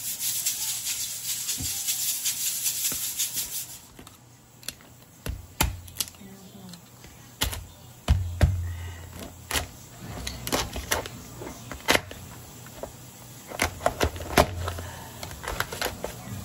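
Meat cleaver chopping through cooked crab shell on a wooden cutting board: sharp, irregular cracks and knocks, some with a dull thud from the board, starting about four seconds in. Before that, a loud, steady crackling hiss.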